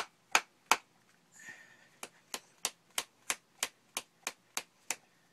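A can of Grizzly Mint moist snuff being packed with quick snapping wrist strokes, each giving a sharp tap, about three a second. A few loud taps start it off, then after a short break a steadier run of about ten softer taps follows.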